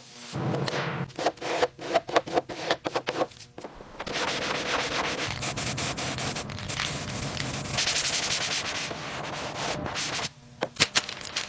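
Sanding by hand: a run of short rubbing strokes, then a steady continuous rasp of sandpaper on the surface that stops about ten seconds in, followed by a few clicks.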